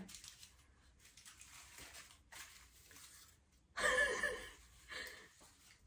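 Quiet room with faint rustling as hair and aluminium foil are handled, then about four seconds in a short burst of a woman's voice, with a second, smaller one just after.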